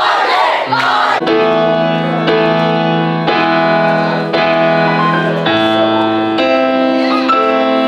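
Live worship song: voices singing with keyboard. The voices wander in pitch in the first second, then long held chords follow, changing about once a second.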